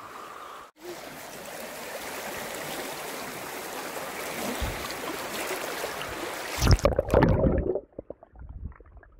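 Shallow, rocky mountain stream rushing steadily over stones, heard close to the water. About seven seconds in there is a burst of loud splashing and knocking, and then the sound suddenly turns dull and muffled as the phone recording it goes under the water.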